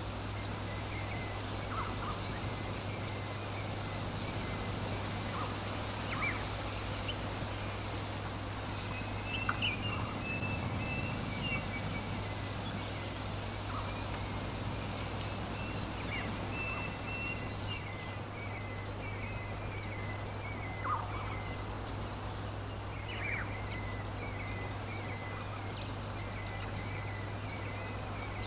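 Small birds chirping and calling: short high chirps repeated every second or two, mixed with a few warbling trills. A steady low hum runs underneath.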